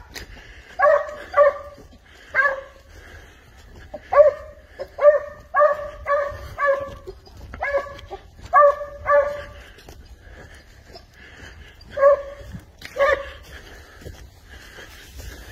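Spanish hound (sabueso español) giving tongue while tracking a wild boar trail on the leash: about fifteen short, pitched barks in irregular runs of two to five, falling silent a couple of seconds before the end.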